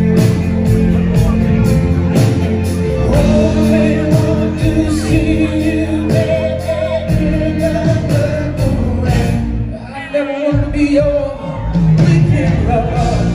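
Live band playing with singing over a steady drum beat. The low end drops away briefly about ten seconds in, then the band comes back in.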